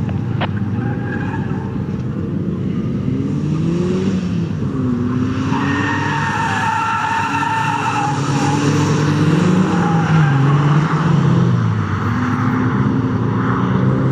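Ford Focus RS Mk1's turbocharged 2.0-litre four-cylinder engine driven hard, its pitch climbing and dropping repeatedly through gear changes and braking. About halfway through, tyres squeal for a few seconds in a corner.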